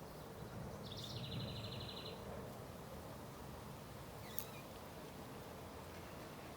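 A bird gives one trill, a rapid run of evenly repeated high notes lasting about a second, over faint steady outdoor background noise. A single sharp click comes about four seconds in.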